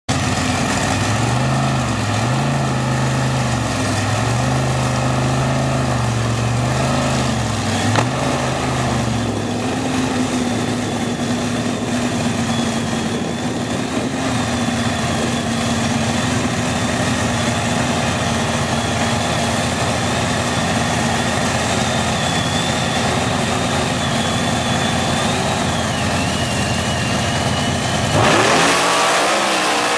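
Dirt drag racing buggy's engine at the start line, blipped up and down repeatedly for the first several seconds, then held at a steady idle with a thin high whine. Near the end it revs hard and loud as the buggy launches down the track.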